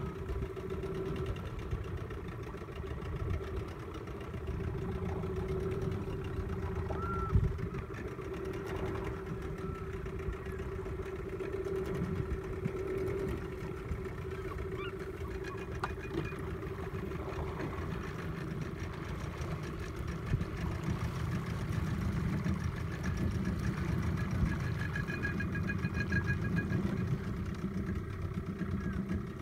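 Boat's outboard motor idling steadily, with one short knock about seven seconds in.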